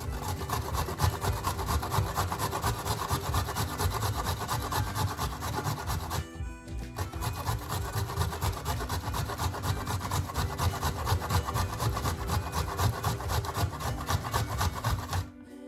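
Fresh ginger root being grated, rapid rasping strokes against a metal grater, with a short pause about six seconds in and stopping just before the end. Faint background music underneath.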